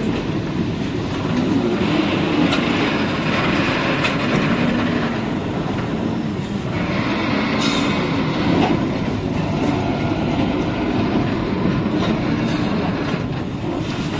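Rail crane travelling along the track: a steady engine hum that drifts a little in pitch, with wheels running on the rails and occasional clicks from the track.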